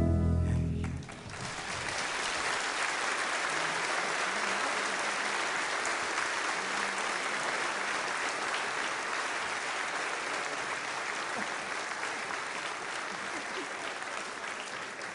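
The last chord of a song dies away in the first second, then a concert audience applauds steadily, the clapping thinning out near the end.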